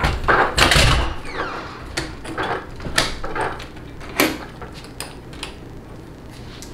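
Hands handling thin red balance-lead wires on a battery pack: irregular clicks and rustles of wire being pulled from a bundle and bent into place, loudest in the first second, then a few sharp clicks that thin out toward the end.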